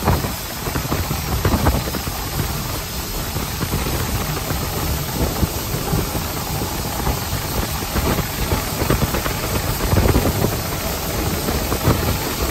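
Steady hiss of steam and running noise inside the cab of Nickel Plate Road 765, a 2-8-4 Berkshire steam locomotive, with irregular faint knocks under the hiss.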